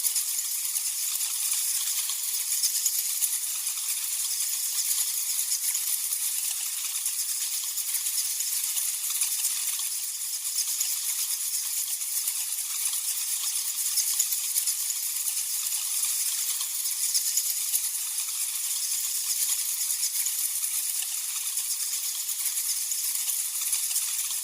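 Sound effect of a colony of bats: a dense, steady swarm of rapid high-pitched chittering and clicking.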